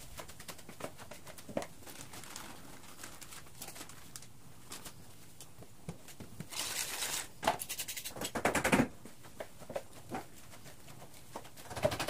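Spatula stirring thick fritter batter in a plastic bowl: a run of light clicks and scrapes. About six and a half seconds in comes a louder stretch of rustling and clattering that lasts two to three seconds.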